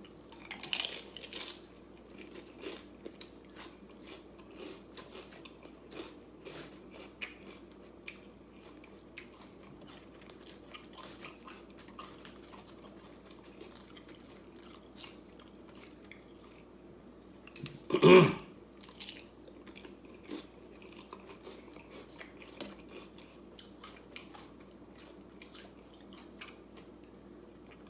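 Crunchy tortilla chips being bitten and chewed close to the microphone. A loud crunching bite comes at the start, followed by a long run of small crackling chews, with one louder burst about eighteen seconds in.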